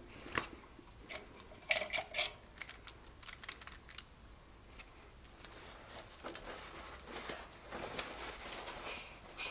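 Scattered clicking and ticking from the lower crankshaft ball bearing of a Briggs & Stratton 14D932 engine as it is turned by hand, with a longer stretch of rattling near the end; the bearing is noisy when spun by hand.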